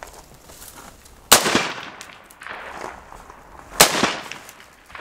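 Two rifle shots about two and a half seconds apart, each a sharp crack that trails off in an echo.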